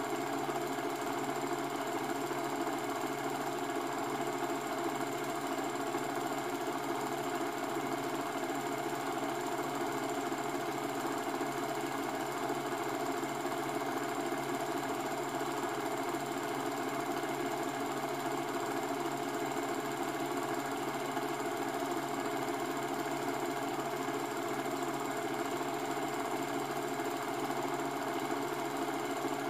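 A cine film projector running: a steady mechanical whirr with a fast, even clatter that does not change.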